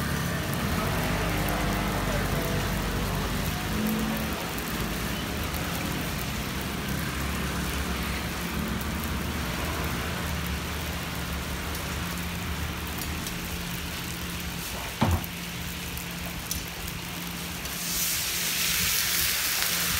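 Raw stuffed buns frying gently in oil in a wide iron pan, over a low steady hum, with one sharp knock partway through. Near the end, water poured from a cup into the hot oiled pan sets off a loud, bright hiss, the steam-frying stage of shuijianbao.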